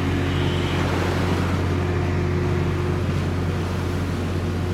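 Steady low drone of the cargo-passenger ship Yuri Maru's engines, with water rushing and churning between the hull and the quay wall as the ship moves alongside.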